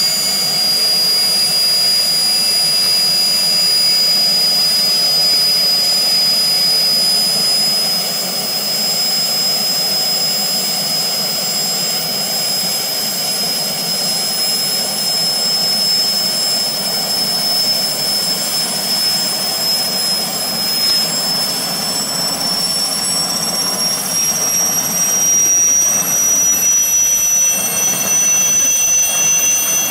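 Turbomeca Artouste IIIB turbine of an Aérospatiale SA 315B Lama helicopter running during start-up, a high whine that rises slowly in pitch as the engine and rotor spool up.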